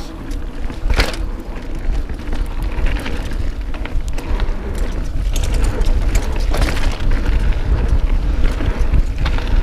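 Mountain bike ridden fast on a dirt singletrack: tyres rolling and the bike rattling over the ground, under heavy wind buffeting on the camera microphone, with a few sharp knocks from bumps. The noise grows louder through the first half.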